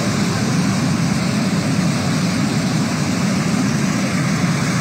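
Muddy flash-flood water rushing fast, a steady loud noise of flowing water.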